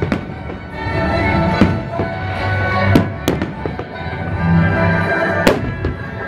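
Fireworks shells bursting overhead, about five sharp bangs a second or two apart, over music playing throughout.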